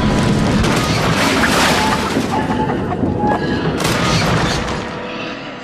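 Crash sound effect of a steam locomotive derailing: a loud, continuous crashing rumble with several sharp impacts, dying away near the end.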